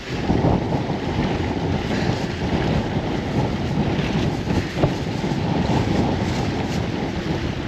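Wind buffeting the microphone over the wash of the sea, with one brief knock about five seconds in.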